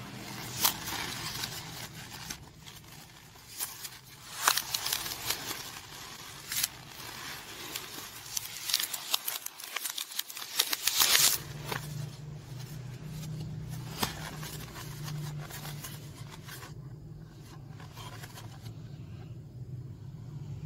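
Hands crushing and tearing a white polystyrene foam food box: a run of sharp crackles that grows denser and loudest about eleven seconds in, then only a few faint ones.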